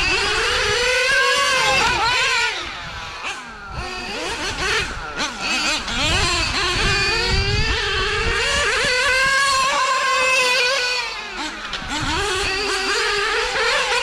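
Two-stroke nitro engines of two 1/8-scale GT radio-controlled cars racing, their high-pitched notes overlapping and rising and falling as they rev and back off. They ease off for a corner about two and a half seconds in and again near eleven seconds, then rev back up.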